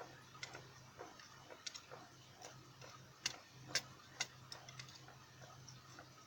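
Faint, irregular light clicks and taps of small metal lock pins and tweezers on a tray as a dimple lock cylinder is taken apart, with three sharper ticks around the middle.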